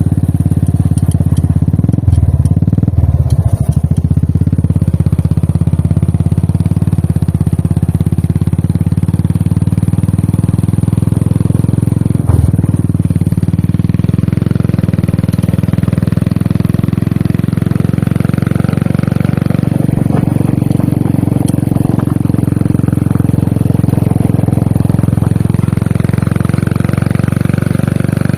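Royal Enfield Classic 350 single-cylinder engine and exhaust running at a steady, even pace while riding, picked up by a chest-mounted camera. There are a few knocks about two to four seconds in and one at about twelve seconds.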